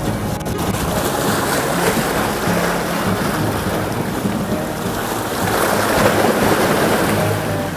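Background music under a loud rushing of wind and sea water, which swells twice.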